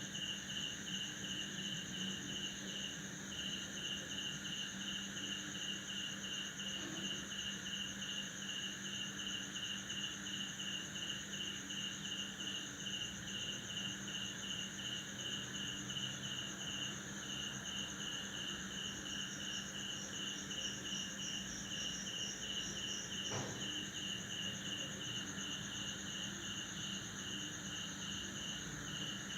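Crickets chirping in chorus at night: a rapid, evenly pulsed chirp runs over a continuous high trill, and another pulsed trill joins for a few seconds past the middle.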